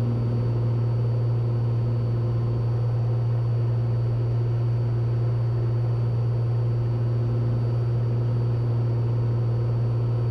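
Steady cabin drone of a Cessna 182T's six-cylinder engine and propeller in flight: an even low hum that holds constant, with faint steady higher tones above it.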